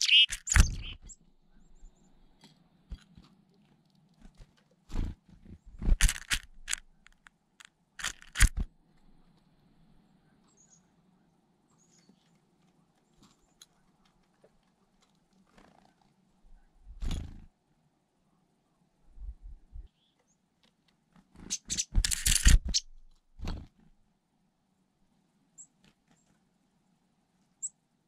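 Black-capped chickadee at a china teacup of black sunflower seeds: scattered clusters of sharp clicks and seed rattles as it picks through the seeds, with a few dull thumps.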